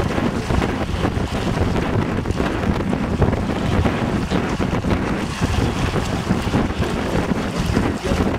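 Wind buffeting the microphone: a steady, rumbling rush of noise with no let-up.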